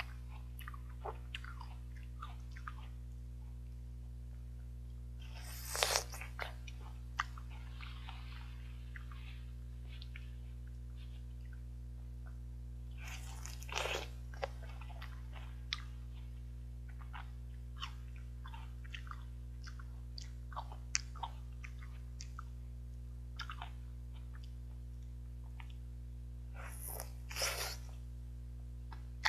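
Close chewing and biting of fresh fruit: wet little clicks of chewing throughout, with three louder crunchy bites about six, fourteen and twenty-seven seconds in. A steady low hum runs underneath.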